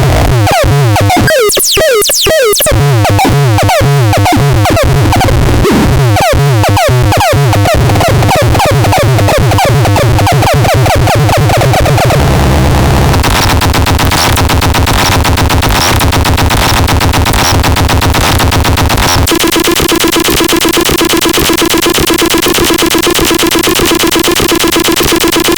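Harsh electronic synthesizer noise: a pulsing low pattern with fast up-and-down pitch sweeps gives way to a dense, noisy texture. About two-thirds of the way through it switches abruptly to a steady buzzing drone with held tones.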